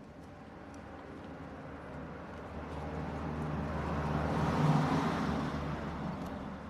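A vehicle passing by, its noise rising gradually, loudest about four and a half seconds in, then fading, over a low steady hum.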